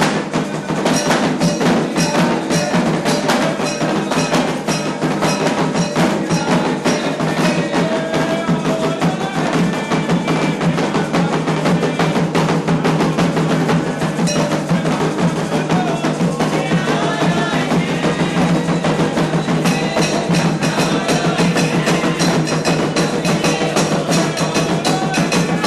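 Candomblé ritual percussion: atabaque hand drums and a struck metal bell playing a fast, dense rhythm without pause, with voices singing over it.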